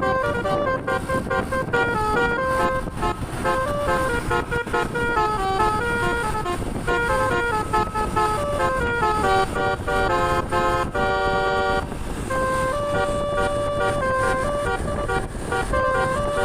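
A bus's Basuri multi-tone telolet horn playing a quick melody note by note. About eleven seconds in it sounds many notes at once for about a second, then slower held notes follow, over steady road and engine noise.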